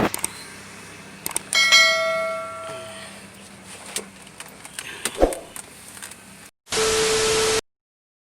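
Metal tools knocking during work on a car's engine bay. About a second and a half in, a struck piece of metal rings like a small bell and fades over a second or so, and another knock follows later. Near the end comes a second of steady hiss with a steady tone, which then cuts off to silence.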